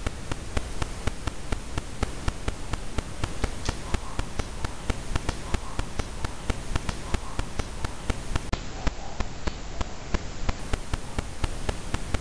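Steady static hiss with regular clicks about three a second: an EVP recording turned up loud, with any voice in it buried and hard to make out under the noise.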